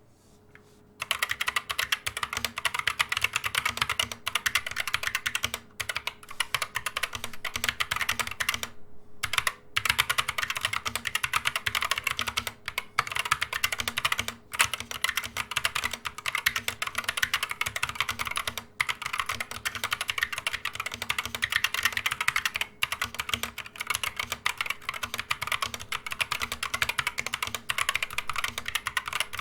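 Fast, continuous typing on a GamaKay MK61 60% mechanical keyboard with Gateron Yellow optical switches under Pudding PBT double-shot keycaps, a quick run of key clicks with a few brief pauses. It starts about a second in.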